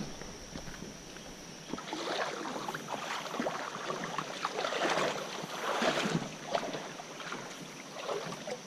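Water splashing and sloshing in irregular bursts, as of steps wading through a shallow creek, starting about two seconds in.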